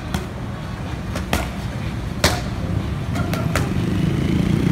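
Boxing gloves smacking focus mitts in sharp slaps: one at the start, a quick pair about a second in, the loudest just past two seconds, then three in quick succession past three seconds. Under them runs a steady low rumble of street traffic.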